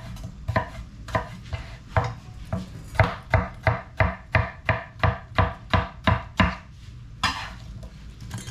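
Kitchen knife chopping watermelon on a cutting board: sharp knocks, slow at first, then a steady run of about three a second, ending in a short scrape.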